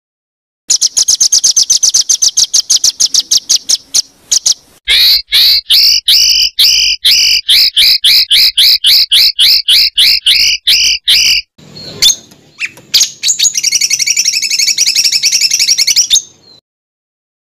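Songbird tutor-recording calls: fast runs of sharp repeated notes, the 'tembakan' rapid-fire phrases used to train songbirds. A quick series of high notes gives way to a run of louder, slurred two-toned notes about five a second, then a dense trill near the end, each segment starting and stopping abruptly.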